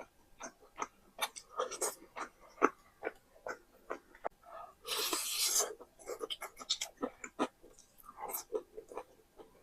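Close-miked eating sounds: wet chewing and mouth clicks in an irregular patter, with one longer, louder noisy sound about five seconds in.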